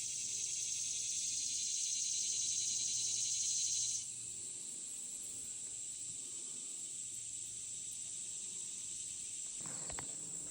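Steady high-pitched insect chorus, like crickets or cicadas, a constant shrill hiss with nothing low underneath; it drops slightly in level about four seconds in.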